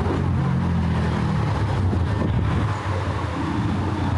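City street traffic, with a motor vehicle's engine running close by as a steady low hum.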